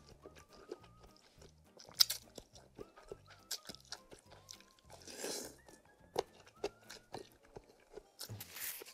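Close-up eating sounds: chewing and crunching of spicy noodles with a crunchy topping, with sharp bites and two longer slurps, one about five seconds in and one near the end, over quiet background music.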